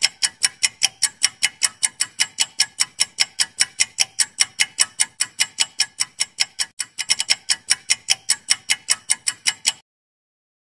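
Quiz timer sound effect: rapid clock-like ticking, about four to five ticks a second, stopping abruptly near the end.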